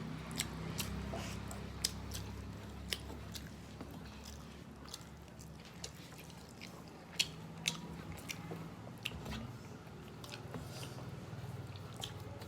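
Close-miked chewing and eating sounds of a meal of rice and fish curry: soft mouth noises with scattered sharp smacks and clicks, the loudest two about seven seconds in, over a steady low hum.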